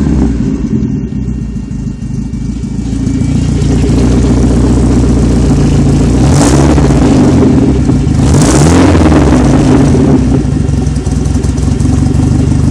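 Saab 900 8-valve turbo four-cylinder engine running at idle. It dips briefly about two seconds in, then is blipped up in revs twice, about two seconds apart, near the middle.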